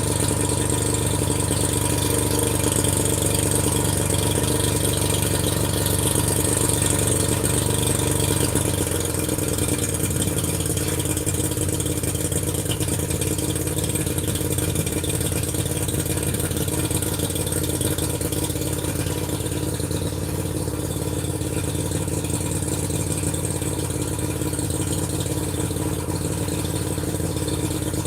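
An engine running steadily with a light rattle, its low hum dropping a little about nine seconds in.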